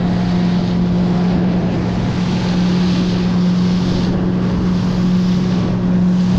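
Boat motor running steadily at an even pitch, with wind and water noise over it.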